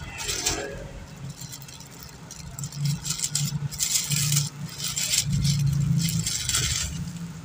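Plastic packaging rustling and crinkling in bursts as a swimsuit is unwrapped and pulled from its pouch, loudest past the middle, over a low hum.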